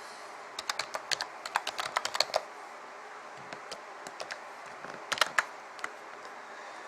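Typing on a computer keyboard: a quick run of keystrokes in the first couple of seconds, a few scattered taps, then another short burst about five seconds in.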